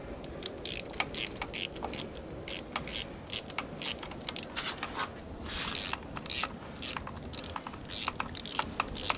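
Irregular sharp clicks and light taps, two to four a second, over a steady high-pitched hum.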